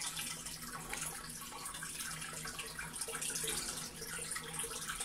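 Water from a hose pouring into a partly filled aquarium, a steady splashing rush of the tank being filled.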